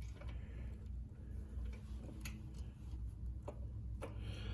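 Faint, irregular clicks and taps of hand-tool work on a mini bike brake, as an Allen wrench is used to force a part into place, over a low steady hum.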